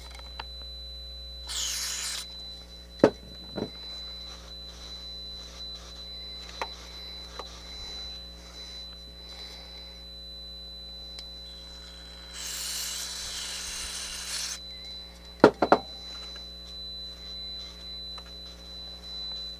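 Aerosol can of Chroma Mist television cleaner spraying into a scratchy balance potentiometer in two hisses: a short one about a second and a half in and a longer one of about two seconds past the middle. A few sharp clicks come after each spray, and a faint steady high tone runs underneath.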